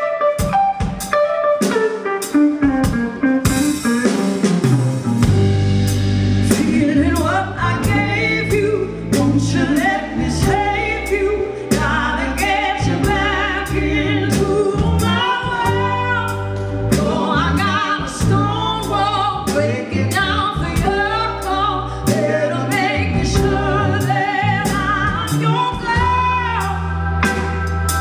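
Female lead vocalist singing live with a band of electric keyboard, guitar, bass and drum kit, with steady drum hits throughout. The bass comes in about five seconds in.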